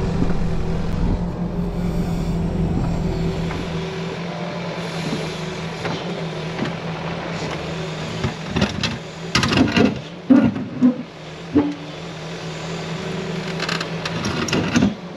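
CAT 308E mini excavator's diesel engine running steadily, with loud irregular knocks and scrapes of the steel bucket working against rock and soil about nine to eleven seconds in and again near the end.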